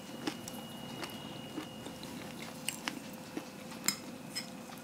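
A person chewing a mouthful of bacon danish, quietly, with a few short clicks of a fork against a plate, the sharpest about four seconds in.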